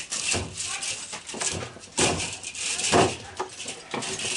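Irregular clicks, knocks and scraping of metal parts being handled while an old AC condenser unit is taken apart for scrap.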